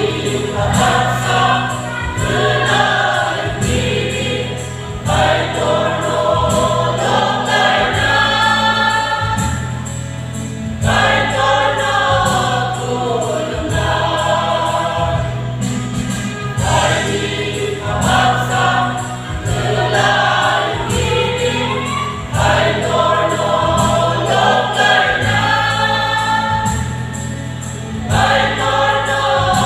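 A mixed choir of women and men singing a gospel hymn together through microphones, over a steady low backing with a regular beat.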